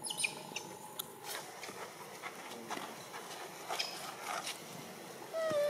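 Scattered light taps and rustles from macaques moving on dry leaf litter, with a steady high tone that stops about a second in. Near the end comes a short, slightly falling call from a monkey.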